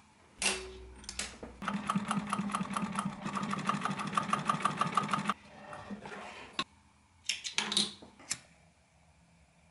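Juki industrial sewing machine stitching through layered leather in a steady run of about seven stitches a second. It starts about a second and a half in and stops after roughly four seconds. A few sharp clicks and taps follow near the end.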